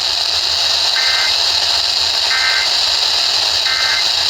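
Three short bursts of EAS/SAME digital data tones, warbling between two pitches about a second and a half apart: the end-of-message code that closes an alert. They sit over a loud, steady radio static hiss.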